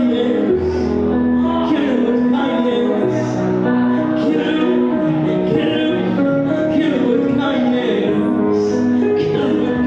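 A teenage girl singing into a microphone, amplified through a small portable speaker, over a backing track with a steady bass line.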